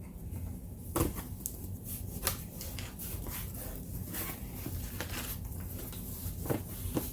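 A cardboard shipping box being opened and its contents handled: irregular rustling and crinkling of packing paper, with sharp crackles and knocks, the loudest about a second in and near the end.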